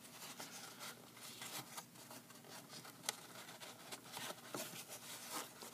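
Faint, irregular rustling and light taps of denim being folded and handled by hand to form a hem.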